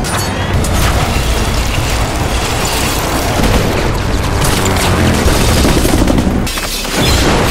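Action-film chase soundtrack: booming blasts and bursts of gunfire over dramatic score music. The sound drops briefly, then a loud blast hits near the end.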